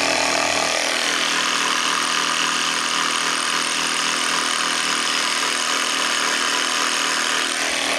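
A small 12V car tire-inflator air compressor running steadily, its motor and piston going but pushing no air out of the chuck: the cylinder head bolts are loose, so it makes no compression.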